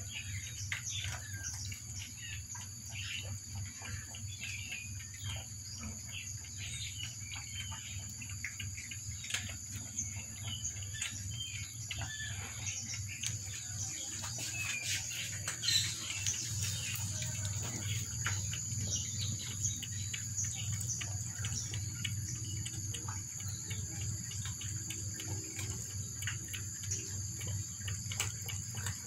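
Cats lapping water from a plastic bowl: quick, soft, rapidly repeated laps. Behind them is a steady high-pitched insect drone, crickets or similar, and a low hum.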